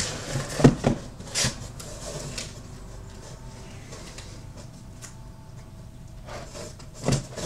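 Comic books being handled: a few sharp knocks and rustles in the first second and a half, a quieter stretch, then another knock near the end.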